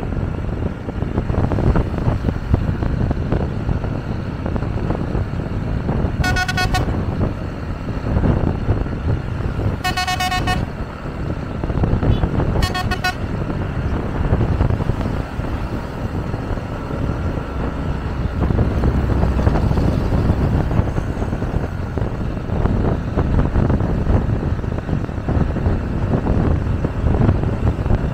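Steady road and wind rumble from travelling in traffic, broken by three short, steady-pitched vehicle horn blasts a few seconds apart in the first half.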